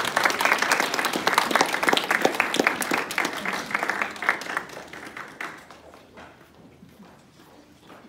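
Audience applauding: many hands clapping at once, fading away about five seconds in.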